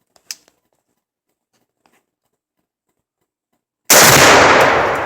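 Half a pound of Tannerite packed into a laptop detonating when struck by a rifle bullet: one sudden, very loud blast about four seconds in, trailing off into a long rumbling echo. A short sharp click sounds about a third of a second in.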